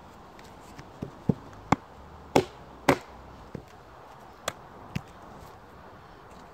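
Wooden baton striking the spine of a Tom Brown Tracker knife, driving the blade down through a log round to split it. About eight sharp wooden knocks at uneven spacing over about four seconds, the two loudest near the middle.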